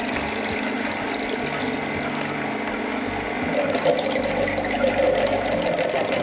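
Namawell J2 slow juicer running with a steady motor hum while green juice streams from its spout into a glass jug through a metal strainer. The sound grows fuller about three and a half seconds in.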